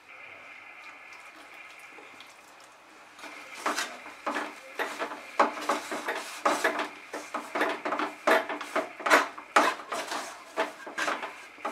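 Wooden spatula stirring and scraping rice flour dough in a metal kadai, in repeated short strokes that start about three seconds in, after a faint steady hiss.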